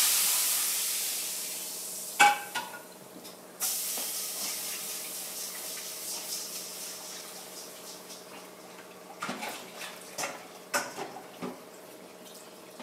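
Water rushing into a kitchen sink with a loud hiss that fades over a couple of seconds, starts again a few seconds in and slowly dies away. A pan or dishes clank against the sink in between and again near the end.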